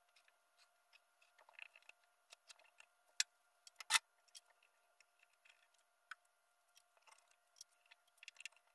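Faint, scattered clicks and rustles of a cloth headliner being cut open and handled at the oval rear window, with two sharper clicks about three and four seconds in.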